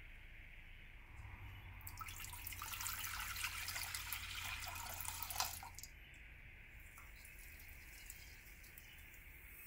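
Water poured in a stream into a stainless steel saucepan, building over about four seconds and cutting off abruptly. After it, a faint hiss and patter as sugar is poured into the water.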